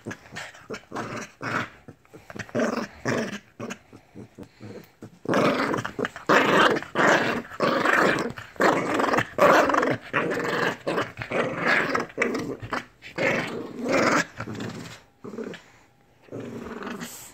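Lhasa Apso growling right at the microphone: short growls for the first five seconds, then a long, loud stretch of nearly unbroken growling lasting about nine seconds, ending in a few short growls.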